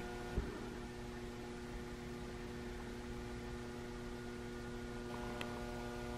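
Steady electrical hum made of several even tones, with one faint click about half a second in.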